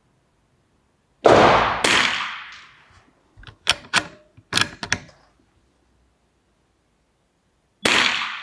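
Unsuppressed .22 LR bolt-action rifle firing SK Standard Plus rounds: a loud shot about a second in, with a second loud report half a second after it, then a quick run of metallic clicks as the bolt is worked to eject the case and chamber the next round, and another shot near the end.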